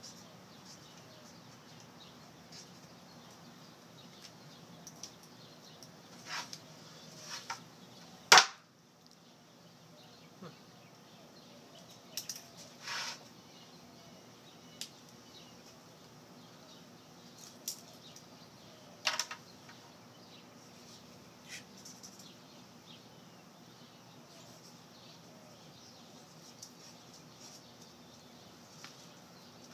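Scattered taps and knocks of pens being handled on a wooden board, with one sharp loud knock about eight seconds in.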